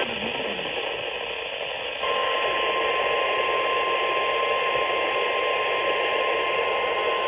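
Radio static hiss, joined about two seconds in by a steady single tone of about 1,050 Hz: the NOAA Weather Radio warning alarm tone heard over a weak, noisy reception.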